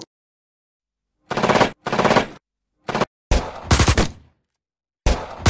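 Dubbed automatic-gunfire sound effects: five bursts of rapid machine-gun shots, the first starting about a second in, with short gaps between them and one longer burst near the middle.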